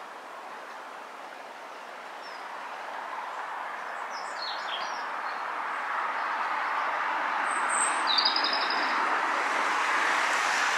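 A steady rushing noise that grows gradually louder, with a few short bird chirps about halfway through and a quick run of high bird notes later on.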